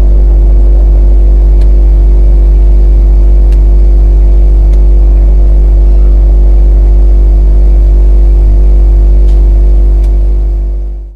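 Drone's electric motors and propellers humming steadily, with several steady tones over a deep low rumble and a few faint clicks. The sound fades out near the end.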